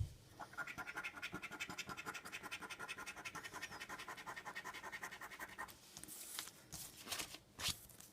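Scratch card being scratched off in quick, even back-and-forth strokes, about ten a second, for roughly five seconds. A few lighter scrapes and a couple of sharp taps follow near the end.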